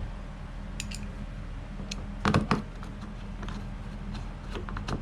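Scattered light clicks and taps of small hardware being handled and fitted while screws on kayak rudder fittings are snugged down, the loudest pair about two and a half seconds in, over a steady low hum.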